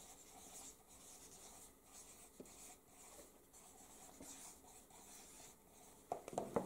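Pen writing on a paper pad: faint, repeated scratchy strokes. A few short knocks sound near the end.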